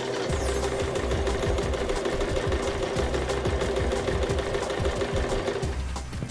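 Domestic electric sewing machine running steadily, its needle stitching through cotton fabric in a fast, even run of strokes over the motor's hum. The running drops off shortly before the end.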